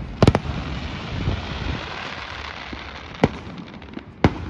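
A public fireworks display going off: two sharp bangs in quick succession at the start, then a hiss, then two more single bangs about a second apart near the end.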